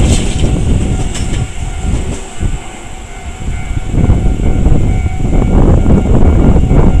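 Tobu Isesaki Line train passing over the level crossing: heavy rumble with wheels clacking over the rail joints. It eases briefly about two seconds in, then comes back loud.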